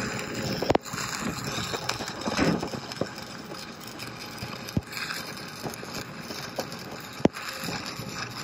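Stick-welding arc from a 7018 electrode laying a fill bead on steel plate: a steady crackling hiss with a sharp pop every second or two.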